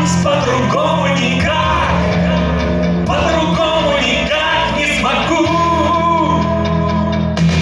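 Male vocalist singing a song live into a handheld microphone over instrumental accompaniment, with long held notes.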